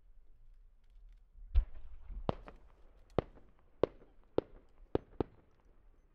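Deep thump of a 10-inch aerial firework shell being fired from its mortar, followed by six sharp cracks about half a second apart as the small bursts on its rising tail go off while it climbs.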